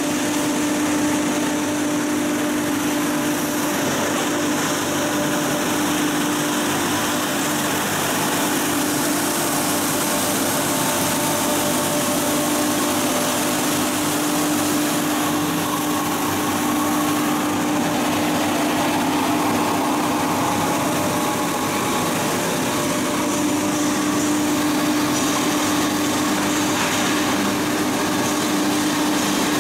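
Belt-driven wood chip hammer mill and its electric motor running, a steady loud drone with one constant hum note over a rushing hiss.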